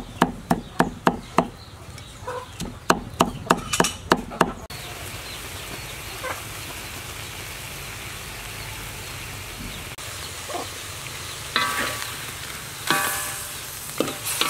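A knife chops dried red chillies on a stone slab in quick, even strikes of about three a second. The chopping gives way suddenly to the steady sizzling bubble of a coconut-milk chilli sauce in a wok. Near the end, a metal spatula scrapes and rings against the wok in a few strokes as shrimp are stirred.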